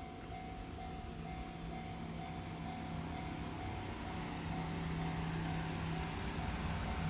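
Japanese railway level-crossing warning bell ringing its electronic ding-ding tone at about two rings a second, while a low rumble grows steadily louder.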